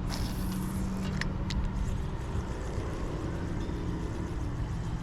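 Steady rumble of nearby road traffic with an engine hum, one vehicle's note rising near the middle. A few short sharp clicks at the start and about a second in.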